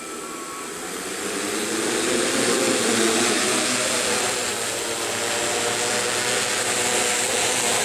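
DJI hexacopter's six electric motors and propellers whirring as the throttle is raised. The whir grows louder over the first few seconds, then holds steady as the motors settle to the same speed.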